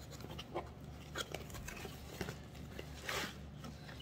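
Bubble wrap being handled and pulled off an item being unwrapped: a run of small crinkles and crackles, with a louder rustle about three seconds in.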